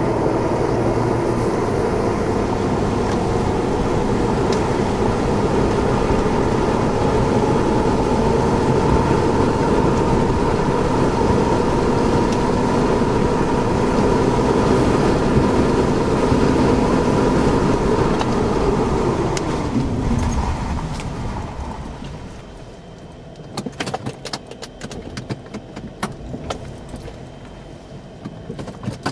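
A car's road and engine noise, heard from inside while driving at a steady speed. About two-thirds of the way through, the noise winds down as the car slows to a stop. After that it is quieter, with scattered sharp taps and knocks.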